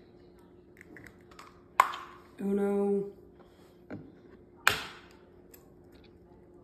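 Eggs tapped sharply against a wooden cutting board to crack their shells: two loud cracks about three seconds apart, with a lighter tap between them.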